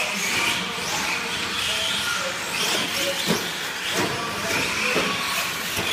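Electric 4x4 short course RC trucks driving on a dirt track: the motors whine, rising and falling with the throttle, over a steady hiss of tyres on dirt. There is a sharp knock about three seconds in.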